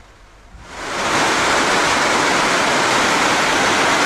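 Heavy rain pouring down in a steady, dense hiss that fades in about half a second to a second in.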